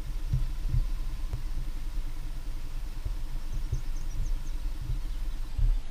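A steady low rumble and hum of a small motor running, with irregular low thumps throughout and a few faint high chirps about midway through.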